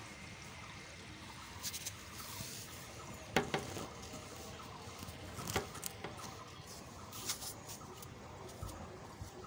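Quiet outdoor background with a handful of short, sharp clicks spread out over several seconds.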